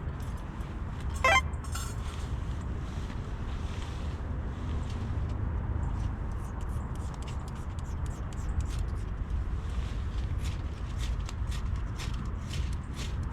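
Pine twigs and needles crackling as a campfire catches, with sharp snaps that come thicker from about halfway. A low rumble of wind on the microphone runs underneath, and a short squeak sounds about a second in.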